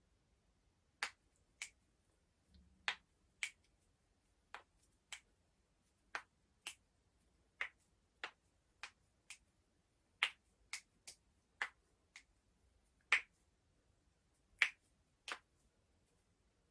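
Human joints being cracked one after another: about twenty sharp pops, irregularly spaced, roughly one or two a second, with quiet between them.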